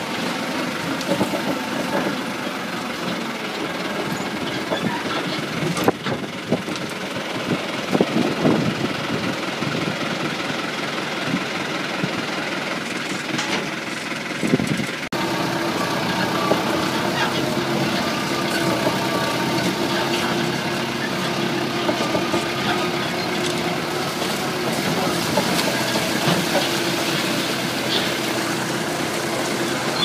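Vehicle engine running steadily while driving slowly over rough pasture, with occasional knocks. About halfway through the sound changes abruptly, and a steady engine hum runs on after that.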